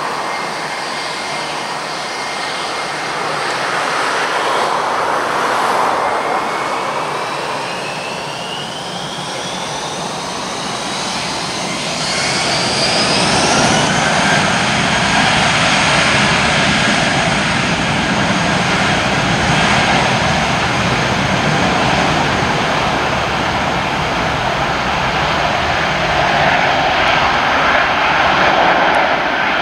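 Airbus A320-232's twin IAE V2500 turbofan engines spooling up for takeoff: a whine rising in pitch over several seconds, then the steady, louder engine noise of the takeoff roll.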